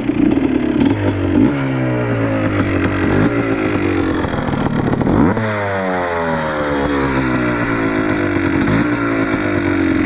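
2000 Yamaha Blaster's single-cylinder two-stroke engine running and revving, its pitch climbing and dropping back several times.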